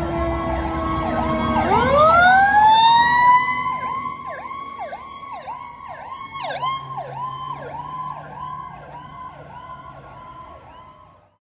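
Fire apparatus sirens sounding together over a low engine rumble: one winds up sharply about two seconds in, then a fast yelp wavers about twice a second alongside a slowly falling tone. The sirens fade away as the units drive off, and the sound cuts off just before the end.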